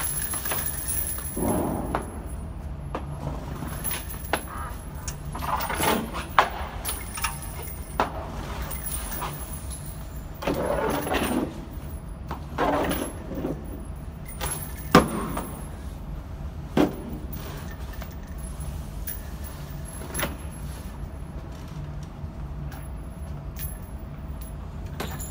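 Four sharp gunshot cracks: a pair about one and a half seconds apart, then another pair about eight seconds later, over a steady low rumble.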